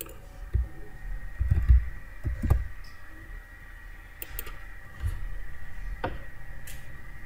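Computer mouse clicks and a few dull knocks at a desk, over a steady faint high-pitched electrical whine.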